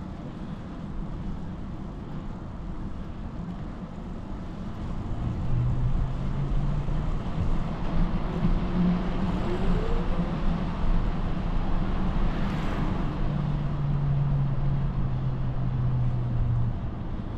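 Wind rush on the microphone and tyre noise from a bicycle rolling along a paved path. A low steady hum joins in about five seconds in and runs for most of the rest.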